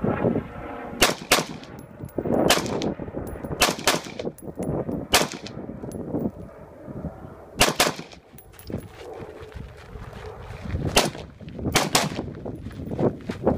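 AR-style rifle firing about ten shots in an uneven string, some in quick pairs a fraction of a second apart, with pauses of a second or more between groups.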